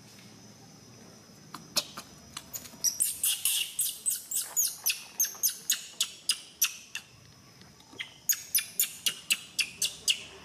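A young macaque giving rapid, high-pitched squeaking screams, about four or five a second, in two runs with a short pause between them.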